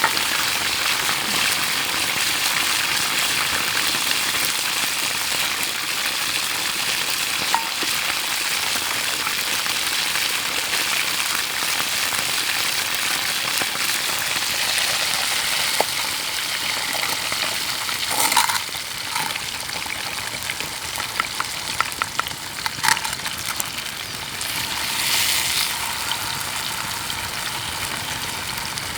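Food sizzling in a frying pan, a steady hiss with a few sharp clinks of a utensil against the pan. The sizzle eases off about two-thirds of the way through.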